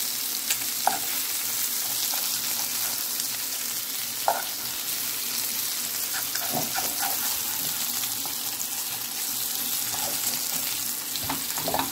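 Slices of vegetarian meat sizzling steadily in a little olive oil in a frying pan, with a few short clicks of a fork against the pan as the pieces are turned over.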